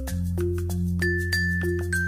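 Background music: a melody of short, bright struck notes over a steady beat and held bass notes.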